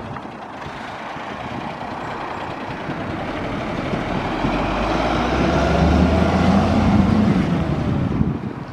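1990s Leyland DAF flatbed truck's diesel engine pulling away and accelerating past, its engine note rising and growing steadily louder to a peak about two-thirds of the way through, then easing off.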